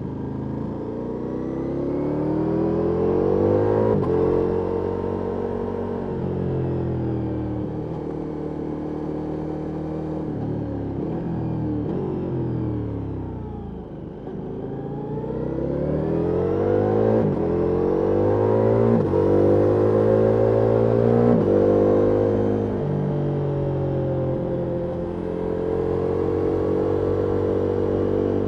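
Ducati Multistrada V4S Rally's V4 engine through an Akrapovic exhaust under hard riding: the revs climb, fall away to a low point about halfway through, then climb again through several quick gear changes before settling.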